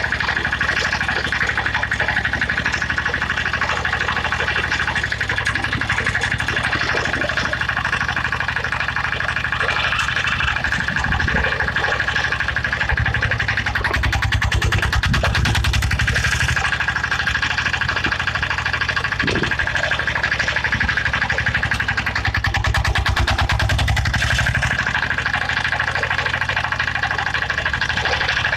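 Small petrol engine of a ride-on garden tractor with a backhoe attachment running steadily under a constant high whine, the engine note growing heavier and deeper in stretches around the middle and again later on.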